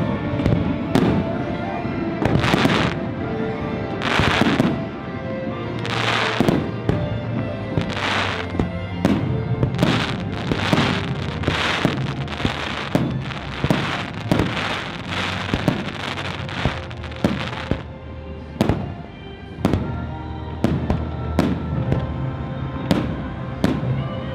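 Aerial firework shells bursting in quick succession, each a sharp bang, with orchestral show music playing underneath. The bursts come thickest in the middle and thin out near the end.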